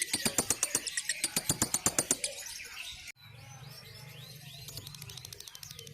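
Lovebird ngekek: a long, fast chattering trill of sharp notes, about ten a second, loud for the first two seconds. After a sudden cut it goes on as a fainter run of rising chirps over a low hum.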